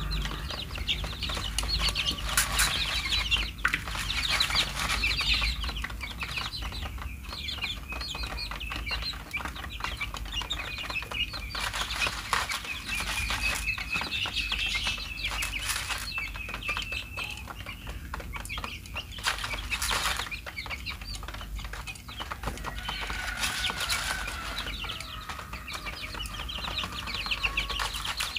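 A flock of young chickens cheeping and peeping continuously in high, rapid calls, with sharp pecking taps on their plastic feed tray and now and then a brief flutter of wings.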